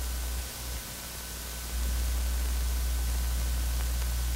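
Steady hiss and low hum of an old film soundtrack, with no other sound. The hum drops away about half a second in and comes back louder a little before two seconds.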